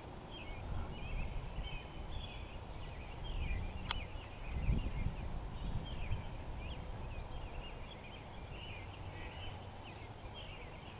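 Birds chirping, many short calls overlapping, over a low rumble, with one sharp click about four seconds in.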